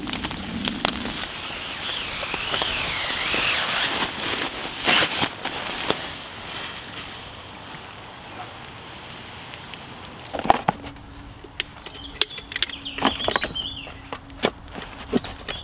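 Camping gear being handled and packed away: a run of sharp clicks and knocks in the second half, over a low steady hum. The first half is a steady hiss with a few high wavering calls.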